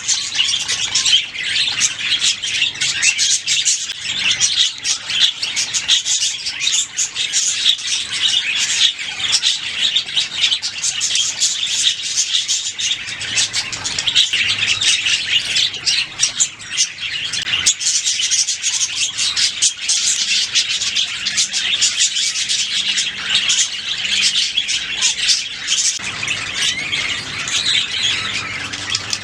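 Several budgerigars singing and chirping without a break, many calls overlapping in a dense high chatter.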